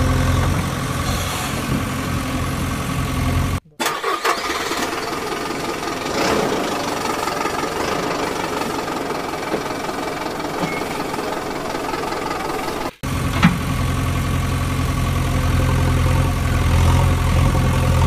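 An engine idling with a steady low hum. It breaks off abruptly about four seconds in and gives way to a noisier stretch without the hum. The idling comes back just as abruptly about thirteen seconds in.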